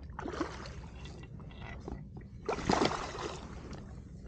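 Water splashing in two bursts as a hooked fish thrashes at the surface beside an inflatable boat, the second burst, about two and a half seconds in, the louder.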